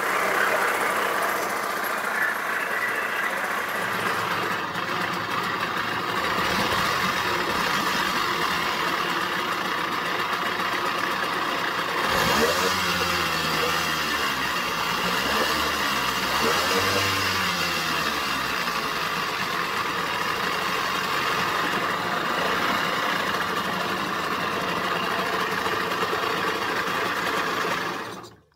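1999 Tohatsu 3.5 hp two-stroke outboard running, struggling at tickover, its pitch rising and falling a few times as the throttle is opened and closed. It cuts off abruptly near the end.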